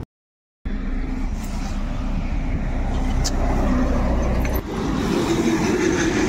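Road traffic noise with a low rumble and indistinct voices in the background, cut off by a brief dropout just after the start and changing abruptly after about four and a half seconds.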